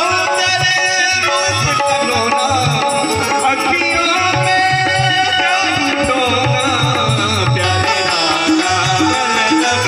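A Hindi devotional bhajan played live: harmonium and electronic keyboard carry the melody over a steady tabla rhythm, with a man singing into a microphone.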